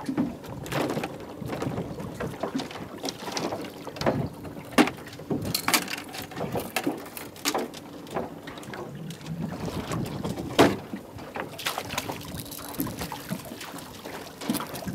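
Irregular knocks, clatter and splashing aboard a small fishing boat at sea, with two sharper knocks about five and ten seconds in, as a fish is brought alongside and netted.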